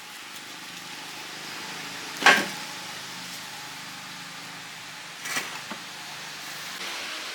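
Steady background hiss with a faint low hum, broken by a sharp knock a little over two seconds in and two lighter knocks around five seconds: workshop work on a machine.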